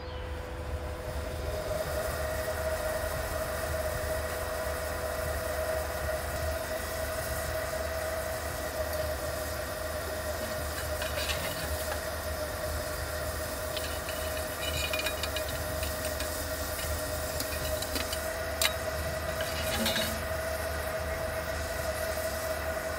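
Steam blower of a Sweet William miniature steam locomotive hissing steadily up the chimney with a constant tone, drawing the fire after the boiler has raised steam. A few light metal clinks in the second half.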